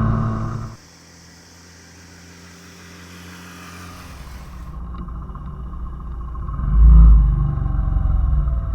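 A small motorcycle engine running, which cuts off abruptly in under a second. It is followed by a low vehicle rumble that builds steadily, is loudest about seven seconds in, then eases slightly.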